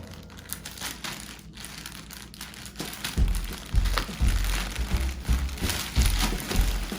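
Packaging crinkling and rustling as a boxed microscope is handled and unpacked. From about three seconds in there are irregular dull, low thumps of handling.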